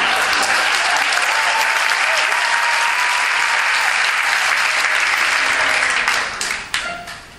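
Theatre audience applauding, thinning to a few last scattered claps and dying away about six seconds in.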